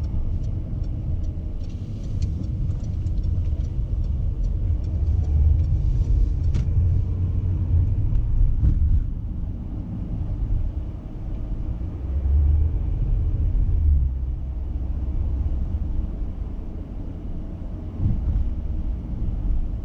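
Low rumble of a car's engine and tyres on the road, heard from inside the cabin while driving, swelling and easing every few seconds.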